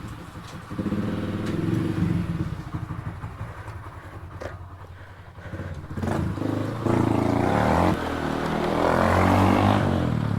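Motorcycle engine running on the move. The engine dips around five seconds in, then pulls harder and grows louder from about six seconds on, loudest near the end.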